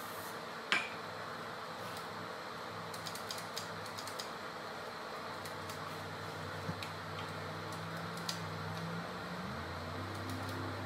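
Light metallic clicks and clinks of hand tools and small bolts being worked on a minibike's engine and frame: one sharp click about a second in, then a scatter of small ticks, over a steady hiss. A faint low drone comes in about halfway and steps up in pitch near the end.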